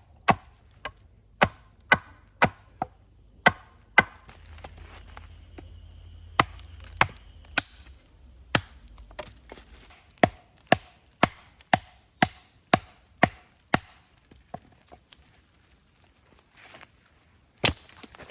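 Firewood being chopped: a series of sharp wooden knocks, about one to two a second, with a short pause near the end before one last strike.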